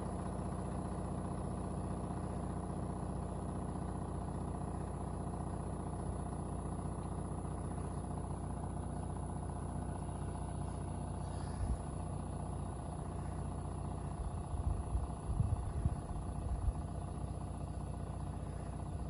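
2-ton LG smart inverter heat pump running steadily in heating mode: an even mechanical hum that holds one pitch throughout. A few low thumps come in the second half.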